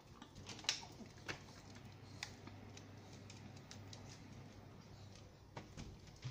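Faint, irregular light clicks and taps on hard paving and tile, a dozen or so, the sharpest about a second in, over a faint low hum.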